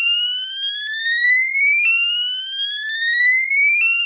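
Electronic fire alarm sounder (a Lightak sounder-strobe) sounding its sweep tone: a loud, shrill tone that rises steadily and starts over about every two seconds, then cuts off at the very end.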